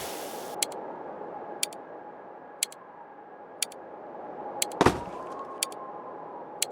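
Clock ticking, sharp ticks about once a second, over a steady whistle-like tone, with one loud sudden whoosh about five seconds in.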